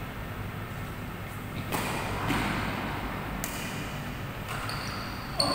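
Badminton rackets striking the shuttlecock in a doubles rally: three sharp hits roughly two seconds apart, each ringing briefly in the hall.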